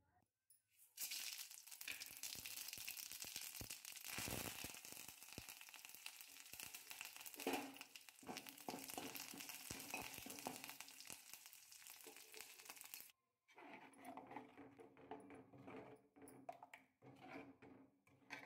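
Peanuts, roasted gram and cashews sizzling in hot oil in a kadai, with the crackle and scrape of a spatula stirring them. The sizzle cuts off sharply about 13 seconds in and gives way to lighter clicking and rattling as the nuts are stirred.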